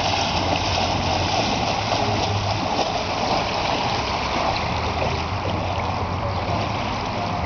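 Legs wading through shallow river water, a steady splashing and sloshing as a person pushes out from the shore to thigh depth.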